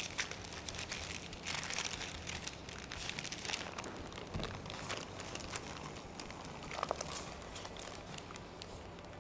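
Parchment paper crinkling and rustling quietly as gnocchi are lifted off a lined tray, with irregular small crackles and a few sharper ticks.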